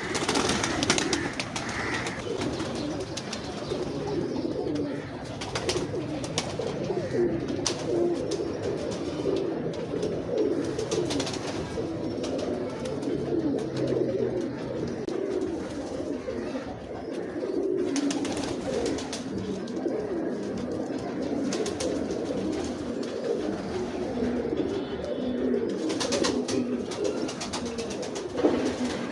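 Many domestic pigeons cooing over one another without a break. A few brief scuffing noises stand out here and there.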